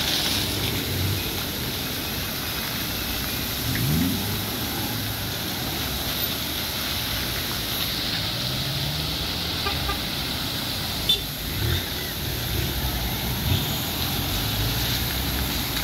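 Steady hiss of a burst water main's jet spraying high into the air, with several cars driving past through the spray on the wet road. A short sharp knock about eleven seconds in.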